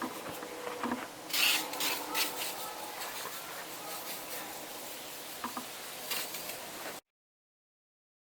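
Hand cleaning an engine with glass cleaner: rubbing and scrubbing sounds with scattered clicks and a few short hisses, then the sound cuts off abruptly about seven seconds in.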